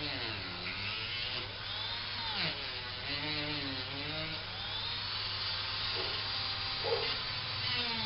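Small electric power tool running, its motor pitch sagging and recovering again and again as it is pressed into the work.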